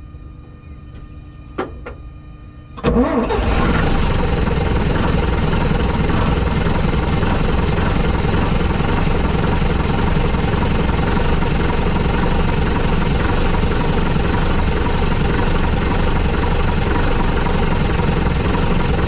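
Six-cylinder Leyland diesel engine of a 1951 Leyland bus-turned-tow-truck starting about three seconds in, picking up quickly, then running steadily and loudly.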